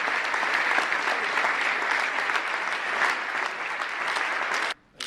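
Large audience applauding steadily, then cut off abruptly near the end.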